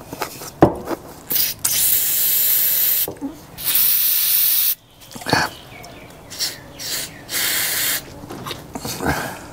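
Compressed air blown through a two-stroke trimmer carburettor's fuel passages in three hissing bursts, the longest nearly two seconds, to clear out choking crud. A few short knocks of the part being handled come between the bursts.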